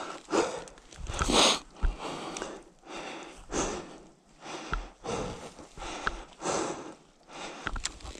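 Heavy, irregular panting breaths, roughly one a second, from a rider worn out from wrestling an enduro bike on a slippery slope.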